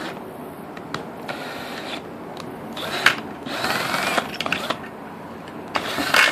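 Power drill running in several short bursts as its bit cuts through the thin steel lid of an Altoids mint tin.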